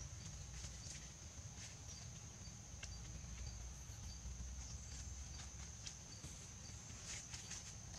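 Steady high-pitched drone of forest insects, with a fainter repeated pip just below it. Scattered light clicks and rustles from handling the branches of a pole frame come and go over it.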